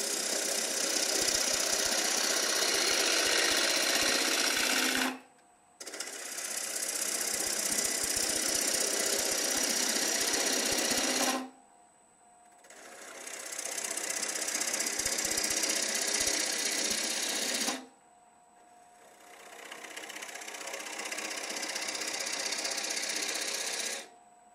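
Bowl gouge cutting into a spinning Drake elm bowl on a wood lathe, shaving wood from the centre in four passes of about five seconds each. Between passes there are short breaks where only a faint steady whine is left.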